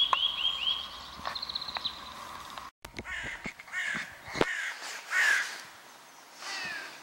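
Wild birds calling: at first a songbird's quick run of repeated chirping notes and a short trill, then, after an abrupt cut, several harsh calls with falling pitch, like crows cawing.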